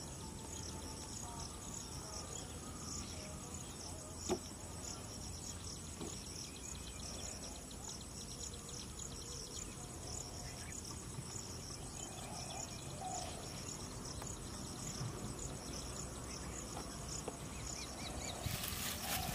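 Insects chirping steadily in a rapid, even pulsing, with one sharp click about four seconds in. A louder rustling comes in near the end.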